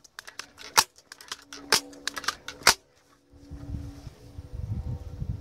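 A few sharp clicks over about two seconds, then a low rumble, as a Daisy 880 .177 multi-pump air rifle is handled and readied for the next shot.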